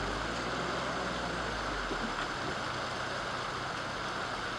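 Steady rush of floodwater running down a creek bed, with a low hum underneath that fades out about two seconds in.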